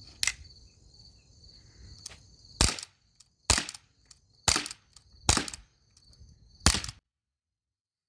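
Colt M45 CO2 blowback BB pistol firing five single shots, each a sharp pop, roughly a second apart.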